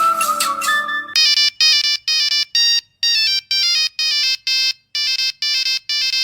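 A 1990s mobile phone's electronic ringtone: a melody of short, buzzy beeps, repeating in phrases about two seconds long with a brief pause between them. It starts about a second in, as a held note from the previous tune ends.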